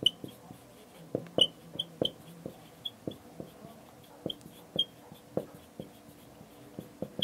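Marker pen writing on a whiteboard: an irregular run of short taps and brief high squeaks, a few a second, as the strokes are drawn.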